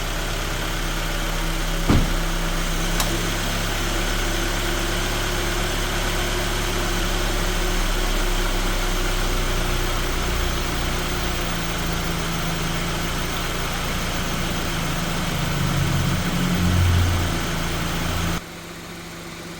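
Acura RSX's 2.0-litre four-cylinder engine running at a steady idle, with a sharp click about two seconds in. The sound wavers briefly near the end, then suddenly gets quieter as the engine keeps running.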